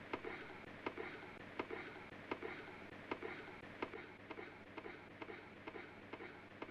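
A clock ticking steadily, a sharper tick about every three-quarters of a second with softer ticks between, over a low steady hum.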